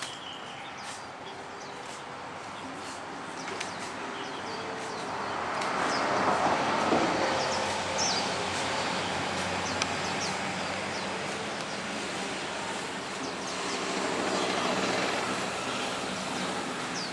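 Broad rushing noise of passing traffic, swelling up about a third of the way in and again near the end, with faint short high bird chirps over it.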